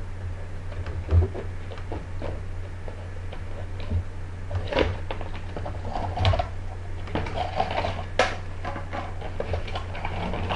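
Scattered plastic clicks, knocks and rustling as the Nerf Stampede's dart magazines and packaging are handled, over a steady low electrical hum.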